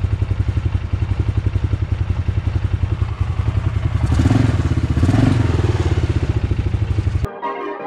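Yamaha Rhino 660's single-cylinder engine running at idle with an even, rapid beat, on its freshly cleaned carburetor. It is revved briefly about four seconds in, then settles back.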